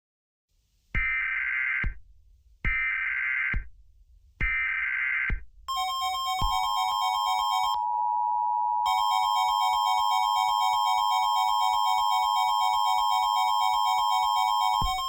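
Emergency Alert System header: three short bursts of screeching digital data tones, each about a second long, followed by a steady electronic attention tone in several pitches that holds for about nine seconds.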